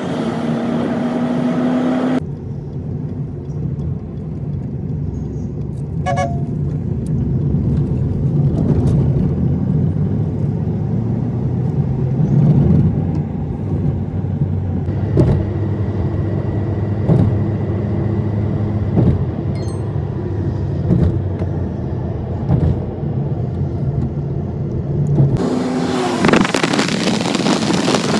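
Engine and road noise of a moving car, heard inside its cabin: a steady low hum. The sound changes abruptly about two seconds in, and a louder rushing hiss takes over for the last few seconds.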